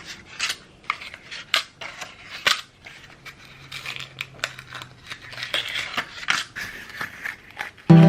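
Scattered light clicks, taps and scrapes of small hard objects being handled, irregularly spaced, with a faint low hum in the middle.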